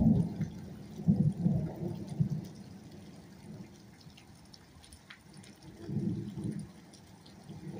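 Storm wind gusting against the phone's microphone as a low, uneven rumble. It is loudest at the start and comes back about a second in and again near six seconds, with faint rain ticking underneath.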